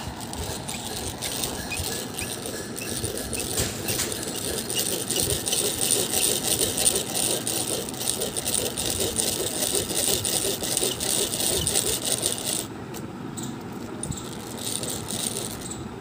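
Geared hand drill being cranked, its gears rattling while the bit grinds into a brass idol's ear to pierce an earring hole. The high grinding hiss stops about three-quarters of the way through, leaving a quieter rattle.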